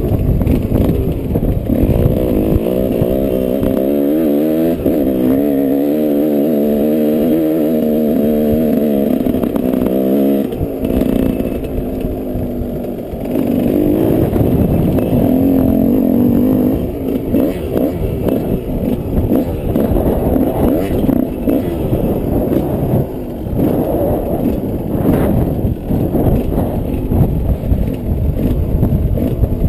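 Yamaha 125 off-road motorcycle engine running under way, its pitch wavering up and down with the throttle. A clear engine note stands out for several seconds near the start, then gives way to a rougher rumble with clatter.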